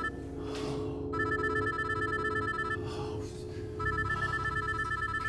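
A phone ringing with a fast electronic trill, sounding twice for about a second and a half each with a second's pause between, over a low, steady drone of music.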